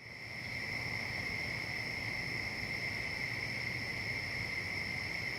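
Night chorus of crickets: a steady, unbroken chirring at two high pitches, cutting in abruptly from silence at the start.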